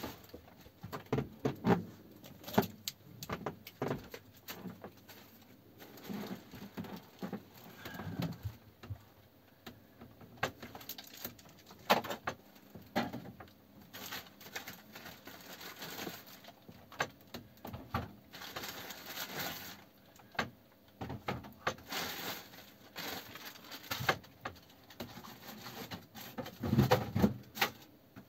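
Irregular clicks, knocks and rustling of someone handling things and a plastic carrier bag in a small cabin, with a cluster of louder knocks near the end.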